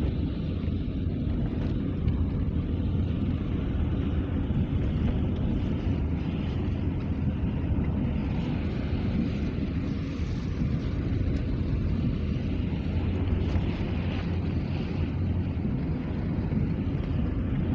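Steady low rumble of a vehicle driving, with engine and road noise and no pauses or changes.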